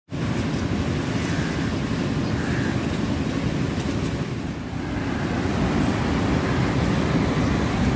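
Steady low rumbling noise, fairly loud, with no distinct cutting strokes standing out.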